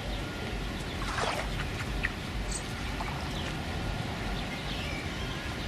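Water sounds with wind rumbling on the microphone, and a few short, high chirps.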